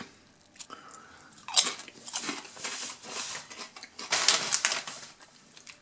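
A crunchy potato crisp (Lorenz Crunchips Hot Paprika) being bitten and chewed, in several crackly spells of crunching, loudest about four seconds in.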